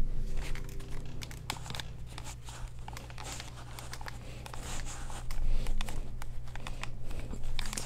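Rustling and small clicks of over-ear headphones being handled and settled onto the head close to a microphone, over a steady low hum.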